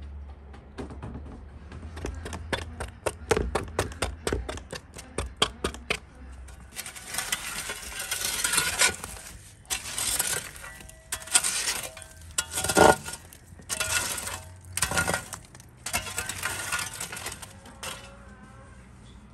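Embers being raked across the brick floor of a wood-fired oven with a long-handled poker, in repeated scraping strokes with short pauses between them. Before that comes a run of quick light clicks or taps, several a second.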